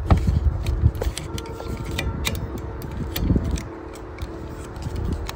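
Plastic clicks and scraping of a wiper blade's adapter being worked onto the hook of a wiper arm and slid into place, many short irregular clicks over a low rumble.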